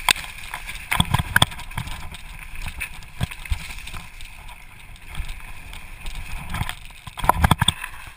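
Santa Cruz Blur LT2 full-suspension mountain bike riding fast down a bumpy dirt trail: a steady rush of tyres and wind, with sharp knocks and rattles from the bike over bumps, in clusters about a second in and again near the end. Heard through a GoPro HD in its case.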